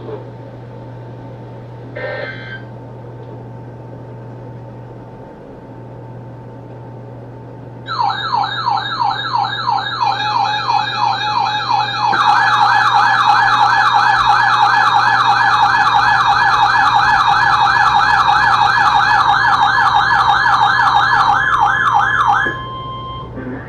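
Electronic alarm sounding a rapid, siren-like warbling tone that starts about a third of the way in. A second warbling tone joins a few seconds later and is louder. Both cut off suddenly near the end.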